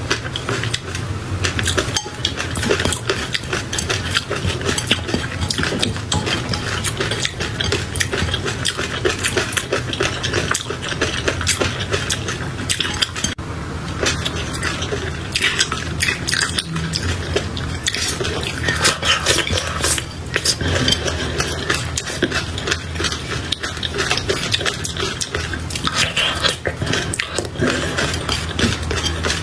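Close-miked eating of raw shrimp with peanut sauce: a continuous stream of wet chewing and mouth clicks, with no pauses.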